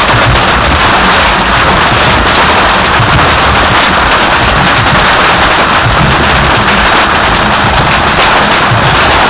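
Loud, unbroken crackle of a dense barrage of bottle rockets and firecrackers from beehive fireworks, countless small pops merging into one steady din.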